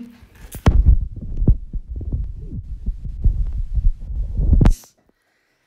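Handling noise on a smartphone's microphone as the phone is picked up and turned around: low rumbling with repeated knocks and thumps, cutting off suddenly near the end.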